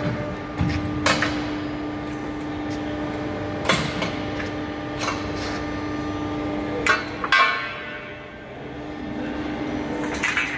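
Bent steel tubes clanking against metal as a finished wheelbarrow frame is handled, over the steady hum of the automatic tube bender's hydraulic unit. The hum drops out about seven seconds in and comes back near the end.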